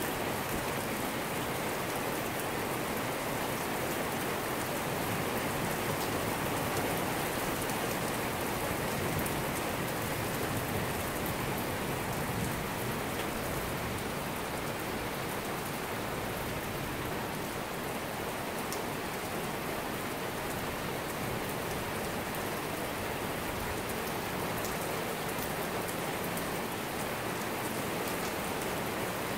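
Heavy rain pouring steadily onto a paved street and parked cars, with a few sharp drop ticks now and then.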